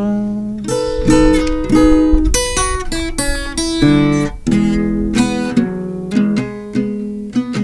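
Background music: acoustic guitar strumming chords, an instrumental stretch between sung lines of a song.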